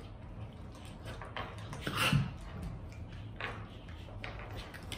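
Two dogs play-wrestling on a hardwood floor: scuffling and mouthing, loudest about two seconds in.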